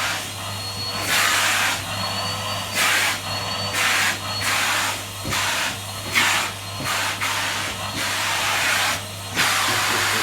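Household vacuum cleaner running, with a steady motor hum under a rushing suction noise that swells and fades every second or so.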